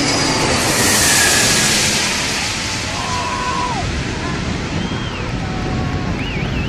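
Roar of the Antonov An-225 Mriya's six turbofan engines as it passes low overhead, loudest with a hissing rush about a second in, then easing as it moves away, with wind on the microphone. Onlookers' shouts and whistle-like calls rise and fall over it in the second half.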